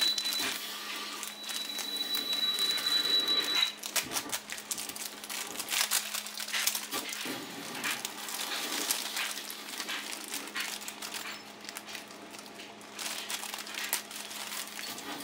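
A clear plastic packaging bag crinkling and rustling in irregular bursts as hands handle and open it. A thin, steady high tone runs for about the first four seconds.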